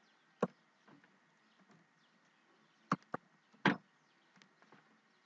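A few sharp keystroke clicks on a computer keyboard while code is typed: one about half a second in, a quick pair near three seconds, and one more just after, over a faint steady hiss.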